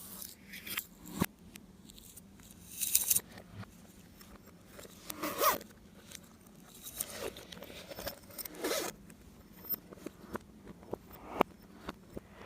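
Slime being handled and mixed: irregular sticky crackling and rasping with sharp little clicks, rising to several louder bursts.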